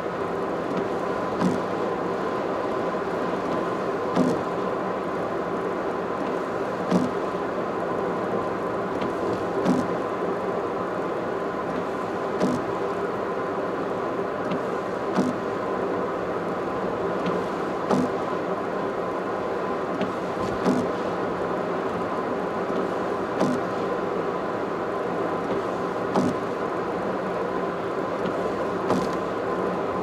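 Car cruising on an expressway: steady road and engine noise with a faint constant whine. A short click or knock comes about every three seconds.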